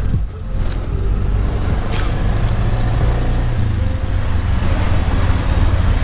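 Tuk-tuk (auto-rickshaw) engine running steadily on the move, a low rumble mixed with road noise.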